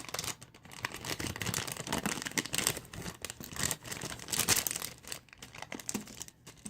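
Squishy toy's packaging crinkling and rustling as the squishy is pulled out of it: a dense, irregular crackle in clusters.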